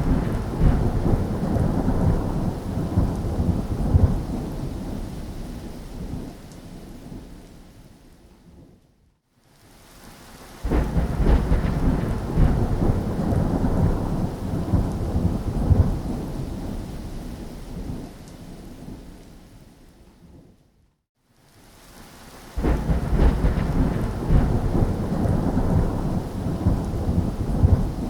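Thunderstorm: rain with rumbling thunder, heaviest in the low end. It comes in three swells that start suddenly and die away over several seconds almost to silence, with new swells about 10 s and 22 s in.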